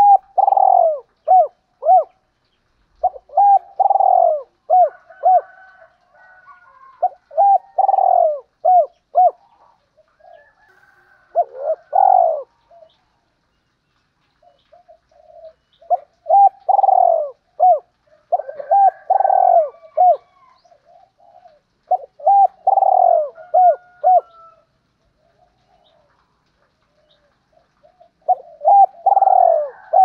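Spotted dove cooing in repeated phrases, each a quick run of short coos around one longer, louder note, with pauses of a few seconds between phrases. It is the calling song of a lure dove, used to draw in and stir up other doves.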